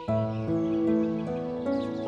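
Background music: a slow melody of held notes that change about every half second.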